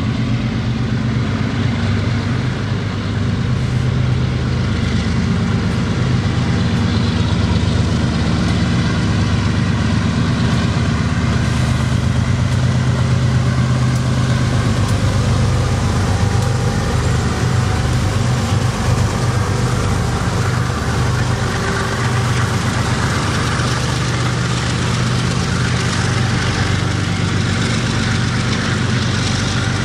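BNSF diesel locomotives running as they pull a double-stack container freight train past, a steady low engine drone. From about two-thirds of the way in, the rumble and rush of the stack cars' wheels on the rails grows as the cars pass.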